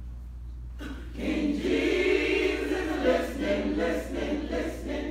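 Church senior choir singing together, coming in after a brief pause about a second in and easing off near the end. A steady low hum runs underneath.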